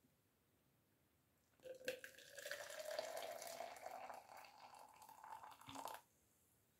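Boiling water poured from a kettle into a plastic measuring cup, starting a couple of seconds in; the pitch of the pour rises steadily as the cup fills, and the pour stops shortly before the end.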